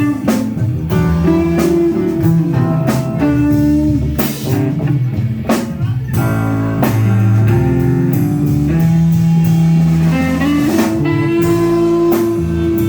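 Live blues band playing: guitar and drum kit with long held chords that fit the band's organ.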